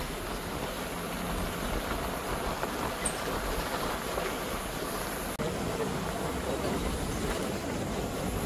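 Safari vehicle driving along a rough forest track: a steady rumble with rattling from the vehicle and road noise.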